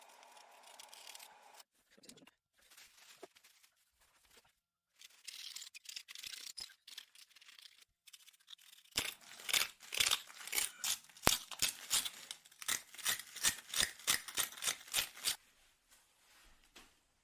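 Scissors snipping open and shut, a quick run of sharp clicks about four a second that lasts several seconds, after some quieter rustling and scraping.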